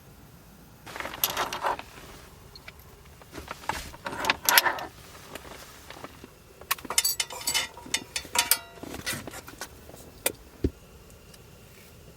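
Three bursts of clinking and rattling from small hard objects being handled, followed near the end by a single sharp knock and a short low thud.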